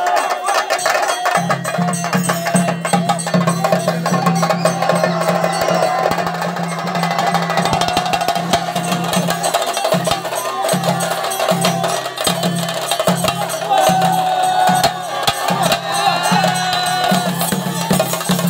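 An ensemble of chenda drums beaten with sticks in a dense, continuous rhythm, with crowd voices and shouts mixed in.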